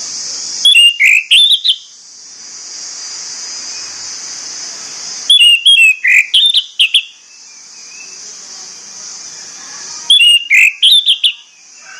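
Orange-headed thrush singing three short phrases of quick, gliding whistled notes, one about every four and a half seconds, over a steady high-pitched hiss.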